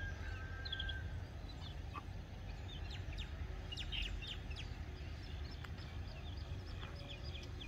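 Faint birds chirping in short, quick notes, over a low steady rumble.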